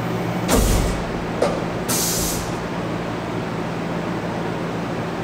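Tormach CNC mill humming steadily during a manual tool change. About half a second in there is a thump, then a sharp click, then a short hiss of air around two seconds in.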